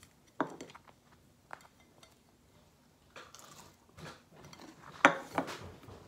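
Tableware being handled on a table: a few separate sharp knocks and clatters, the loudest about five seconds in.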